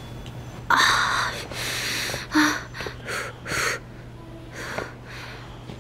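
A young woman's series of sharp, pained intakes of breath and hisses, with a brief whimper, after cutting her finger on a fencing blade.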